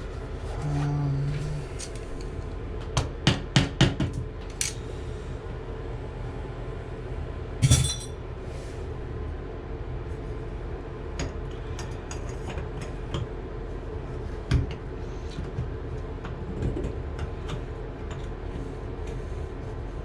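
Hand tools clinking and knocking on metal plumbing parts: a quick run of four or five sharp taps a few seconds in, then a single louder knock and later a lighter one, over a steady low hum.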